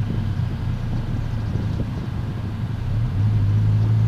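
Car engine and wet-road tyre noise heard from inside the cabin while driving slowly in the rain. A steady low engine hum becomes louder about three seconds in.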